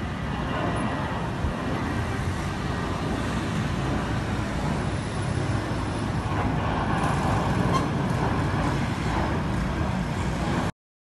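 Airbus A319-132 airliner passing overhead, its IAE V2500 jet engines giving a steady, pitchless rumble that cuts off abruptly near the end.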